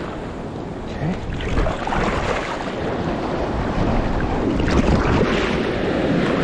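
Shallow surf washing and swirling around the feet, with wind on the microphone; the wash swells about five seconds in.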